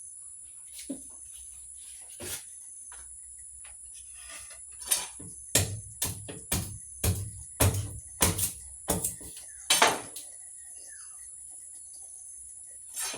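A very sharp blade chopping firewood into kindling: about a dozen sharp strikes, roughly two a second, starting about five seconds in and stopping near the ten-second mark. Crickets chirr steadily and shrilly throughout.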